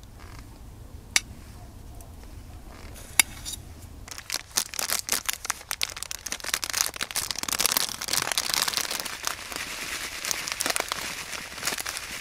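Two sharp clinks of a fork against a metal camping pot. Then, from about four seconds in, a plastic bag of short vermicelli noodles crinkles steadily as it is opened and handled.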